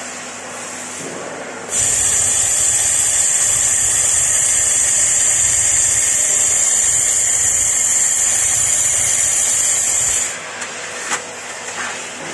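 Handheld fiber laser welding gun running a weld along a metal plate: a loud, steady hiss with a bright high edge starts about two seconds in and cuts off suddenly about eight seconds later. A single sharp knock follows near the end.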